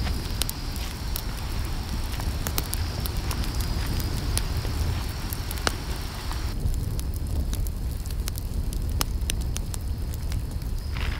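Wood campfire burning, with frequent sharp crackles and pops over a low steady rumble.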